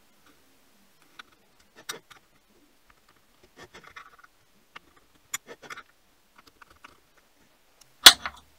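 Scattered light clicks and short scrapes as a caliper and pencil are handled and set down on a 4 mm aluminium plate, then one sharp metallic snap about eight seconds in, the loudest sound, as a centre punch marks the plate's centre.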